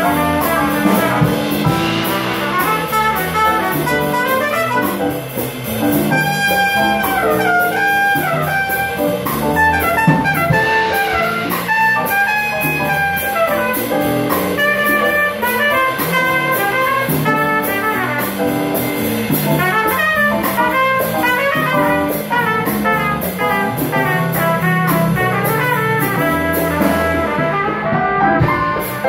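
Live jazz band playing: a trumpet carries the melody over electric bass, congas, keyboard and cymbals.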